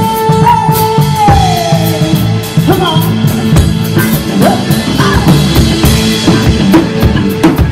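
A live rock-pop band playing, with drum kit, electric bass and electric guitar, and vocals over a steady drum beat. A held high note slides down about a second in.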